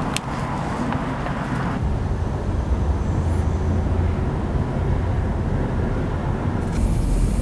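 Car in motion: a steady low road and drivetrain rumble with a couple of faint clicks near the start. The sound's character changes abruptly twice.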